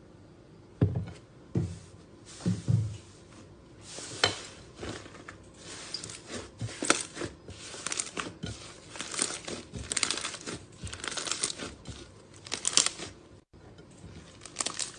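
Slime being pressed and stretched by hand. A few soft, low squishes in the first three seconds give way to a busy run of crackling and popping clicks.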